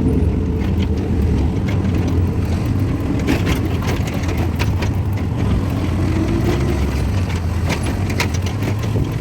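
A motor vehicle's engine running steadily with a deep rumble, with frequent rattles and clicks over it, most of them in the second half.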